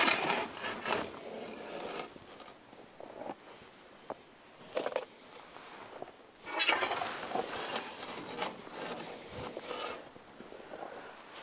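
Metal ash shovel scraping along the floor of a Central Boiler Classic Edge 350 outdoor wood boiler's reaction chamber, scooping out ash. Scraping runs through the first two seconds, comes once briefly about five seconds in, and again in a longer run from about six and a half to ten seconds in.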